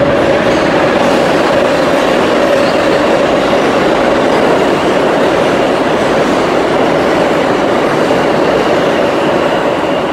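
New York City subway train running past a station platform without stopping: a loud, steady rumble of wheels on rail.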